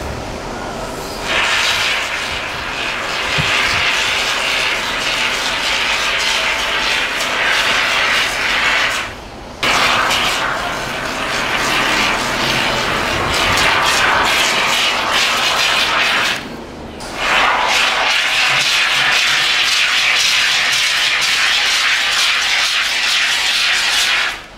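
Can of Great Stuff Gaps & Cracks expanding polyurethane foam spraying through its straw applicator: a steady hiss that starts about a second in and breaks off briefly twice as the trigger is let go.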